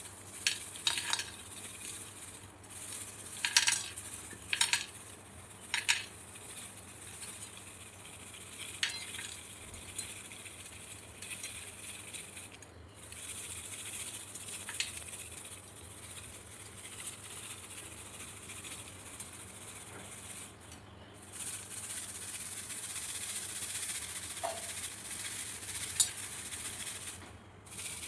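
Roasted chickpeas (chana) being rubbed and shaken to strip off their papery husks: a steady dry rustling and rattling, with sharp clicks of the hard grains, several in the first ten seconds.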